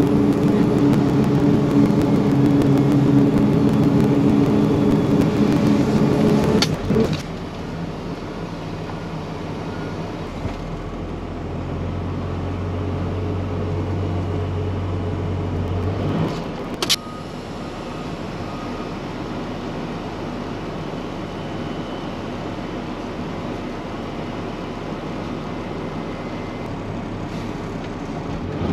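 Peterbilt 379 semi truck's diesel engine running with a steady low drone. About seven seconds in it drops sharply to a quieter, steady hum, and a sharp click comes about ten seconds later.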